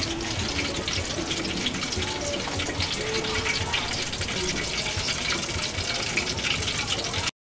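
Spring rolls deep-frying in a wok of hot oil: a steady sizzle full of fine crackles, which cuts off suddenly near the end.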